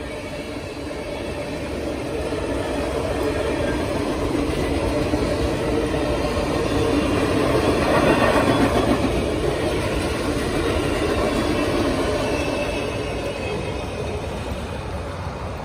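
Norfolk Southern passenger cars passing at speed, their wheels rumbling on the rails. The sound swells to its loudest about halfway through and fades as the cars roll away.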